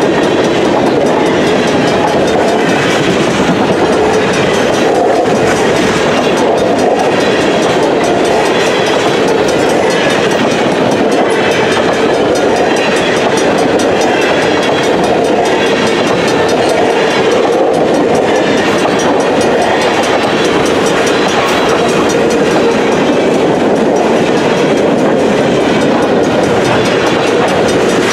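Loaded freight cars, boxcars then tank cars, rolling past close by at track speed. Steel wheels run loud and steady on the rail, with a clickety-clack over the rail joints.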